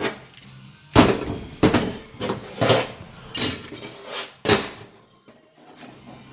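Steel and friction plates from a 700R4 automatic transmission's clutch pack clinking and clattering as they are handled: several sharp metallic knocks over the first four and a half seconds, then quieter handling.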